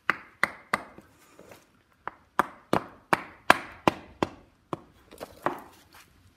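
A series of about fourteen sharp knocks in uneven runs as the output shaft of a Land Rover Series overdrive unit is spun round by hand, with the overdrive disengaged.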